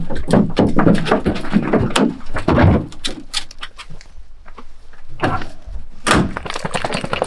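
Hounds being lifted out of a pickup's dog box: scuffling, collar and leash handling and the dogs stirring. Near the end comes a sharp thunk as the pickup's tailgate is swung shut.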